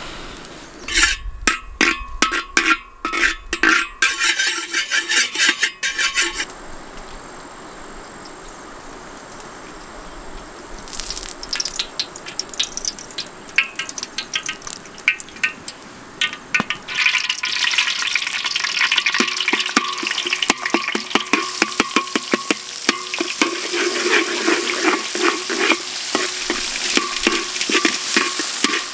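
A run of sharp knocks early on. Then cooking oil poured into a hot steel wok over a wood fire starts to crackle. From about halfway, dense loud sizzling and scraping strokes as a mixture is stir-fried in the oil.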